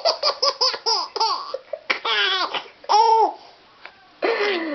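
Small child laughing with a high voice: a quick run of short giggles over the first second and a half, then a few longer, drawn-out laughs, the last after a pause of about a second.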